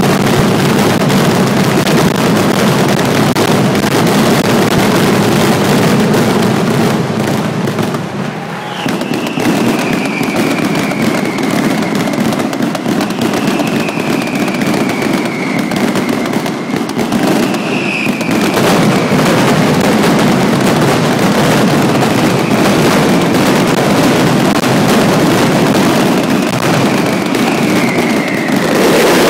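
Mascletà: a dense, unbroken barrage of firecracker bangs (masclets) going off in rapid succession, with a brief lull about eight seconds in. A few falling whistles sound over the bangs.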